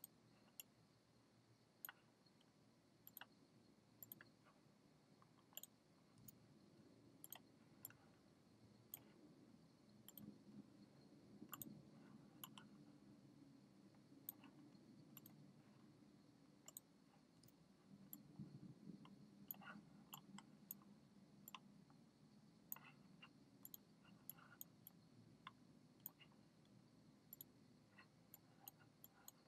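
Faint computer mouse clicks, irregular and scattered, coming more often in the second half, over near-silent room tone.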